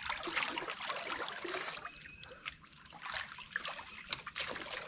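A person wading in shallow swamp water over soft mud, with small splashes, sloshing and trickling water, and scattered crackles and ticks.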